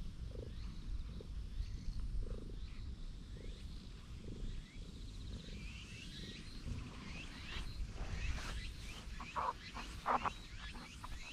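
Pale ginger tabby cat purring while being stroked, a low steady rumble. Several short sharp crackles come near the end.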